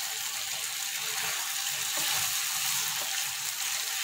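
Sauce-coated fried potatoes sizzling in a nonstick pan with a steady hiss, while a spatula stirs them with soft scraping and squelching.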